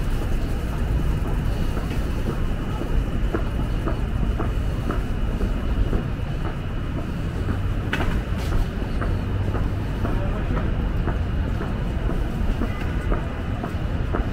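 Steady low rumble of city street traffic, with scattered light clicks and knocks through it.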